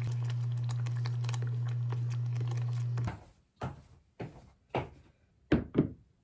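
Rice porridge bubbling in a saucepan on an induction cooktop: a dense crackle of small pops over a steady low hum, which cuts off about three seconds in. About five separate knocks and clatters follow as the pot and a wooden spoon are handled on a table.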